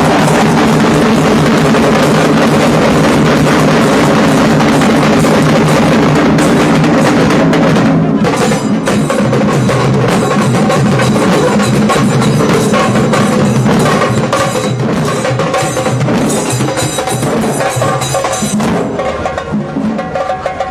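Loud drum-heavy music with dense, sharp percussion strokes, thinning out and getting a little quieter in the second half.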